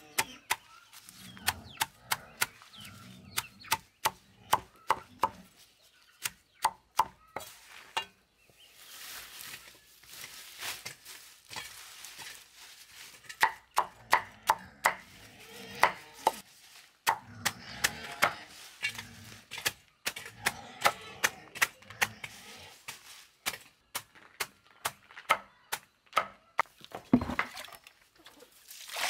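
Machete chopping a pile of leafy green vines on a concrete slab: runs of sharp chops, two to three a second, broken by a pause a few seconds long with soft rustling of the leaves.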